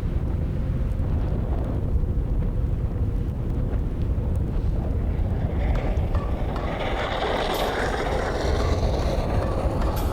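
Wind rumbling on the microphone, with a rushing hiss building from about halfway through.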